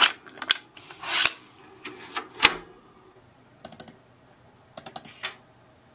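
Plastic clicks and clatter from a Sony Mavica floppy-disk camera being handled as its floppy disk comes out. Later come two short bursts of quick clicks, four or five in each.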